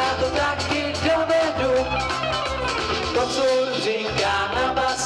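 Live band playing an upbeat song over loudspeakers, with a group of singers singing together over a steady drum beat.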